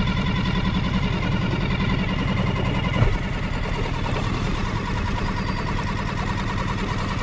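Small boat's petrol outboard motor running steadily, with a single knock about three seconds in.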